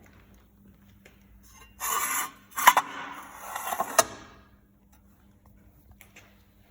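elumatec AF 222 end milling machine running through a short cycle over a low steady hum. About two seconds in there is a half-second burst of hiss-like noise, then about a second and a half of noisier work that begins and ends with a sharp clunk.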